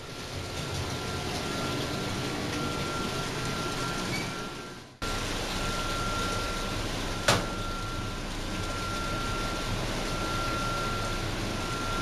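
Grit removal system at a wastewater plant running: a steady machine hum with a constant high whine on one pitch. The sound fades out about five seconds in and cuts back in abruptly, and there is a single sharp click about seven seconds in.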